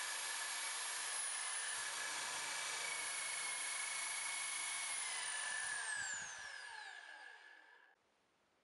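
Corded electric drill, Bosch, mounted in a homemade drill press stand, running at a steady high whine while the bit drills into plywood. About six seconds in it is switched off and winds down with a falling whine, stopping near the end.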